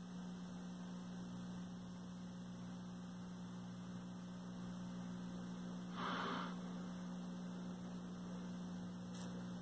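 Steady low mains hum from the speaker of a 1973 Admiral hybrid tube and solid-state colour TV just powered up, described as a lot of hum. A brief soft hiss comes about six seconds in.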